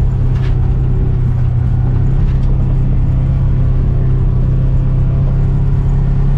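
Side-by-side UTV engine running at a steady speed while driving along a rough trail, a constant low drone with no revving.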